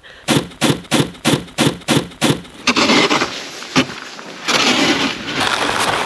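Snow shovel with a plastic blade scraping and pushing across packed snow. Before it comes a quick run of about eight crunching strokes, roughly three a second.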